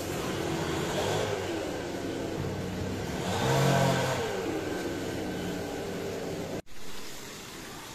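A motor vehicle engine revving, its pitch rising and falling twice, loudest about halfway through. The sound breaks off suddenly for an instant about two-thirds of the way in.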